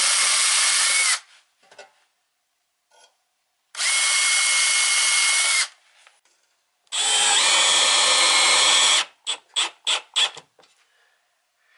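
Cordless drill driving screws through a metal mounting bracket into a wood-plank wall: three steady runs of a second or two each with a steady whine, then a quick string of about six short trigger pulses near the end as the screw is snugged down.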